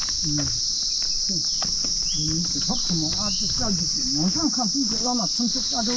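A steady, high-pitched chorus of insects, with a low voice murmuring in a rising-and-falling, sing-song way beneath it.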